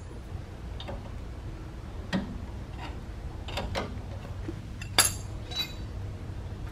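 A metal wrench clinking and tapping against the nut on the lower end of a sway bar end link as it is fitted to the nut. It makes a few scattered sharp clicks, the loudest about five seconds in, over a low steady hum.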